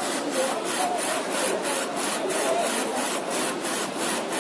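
Textile printer running as it prints a garment sleeve: a steady rasping machine noise with an even pulse of about four a second.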